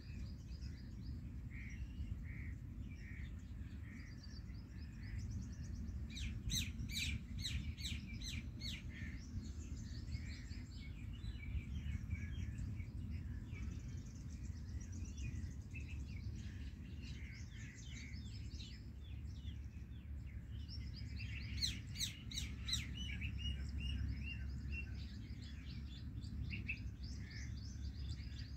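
Small birds chirping and calling on and off, with two runs of rapid, sharp repeated notes about six and twenty-two seconds in, over a steady low rumble.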